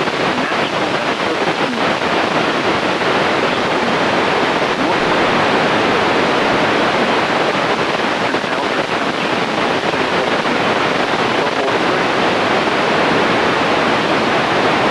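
Steady hiss of radio static from a weather radio receiver, an even rush of noise with no voice or tone in it.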